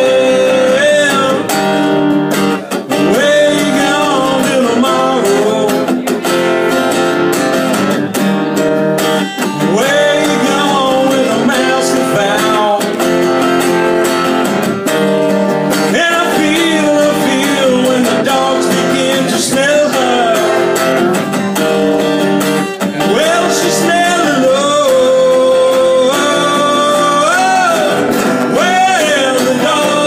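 A small live band playing: a man sings lead into a microphone, holding and bending long notes, backed by guitars.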